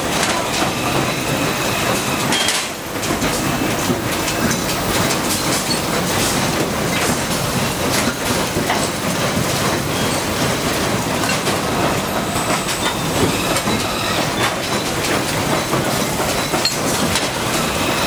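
Factory machinery on a motor stator coil winding and inserting line running, a dense, steady mechanical noise full of small clicks, with a brief dip about two and a half seconds in.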